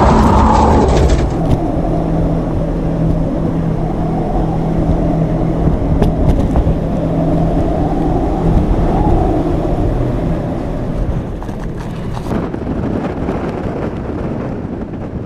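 Loud, steady wind noise of a tornado with a low hum underneath, swelling and easing a little, then slowly fading toward the end.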